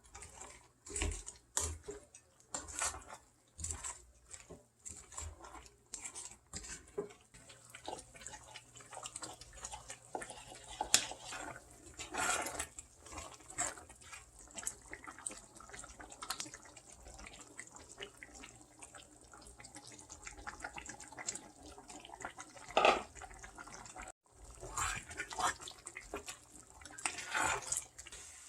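Kitchen handling sounds: irregular taps and scrapes of utensils on dishes, mixed with wet food sounds.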